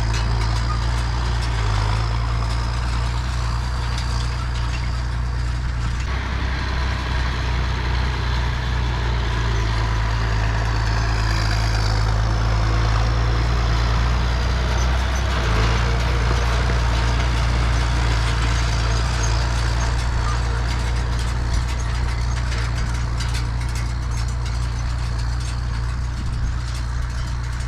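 Farm tractor engine running at a steady speed, a constant low drone with no change in revs.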